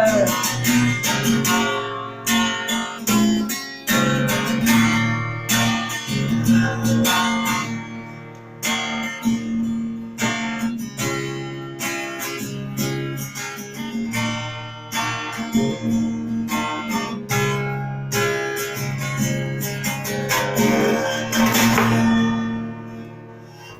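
Acoustic guitar playing an instrumental passage of strummed and picked chords, dying away near the end.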